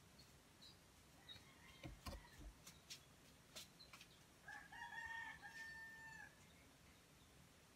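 A faint single rooster crow, one pitched call of nearly two seconds with a brief break in the middle, starting about four and a half seconds in. A few faint clicks come before it.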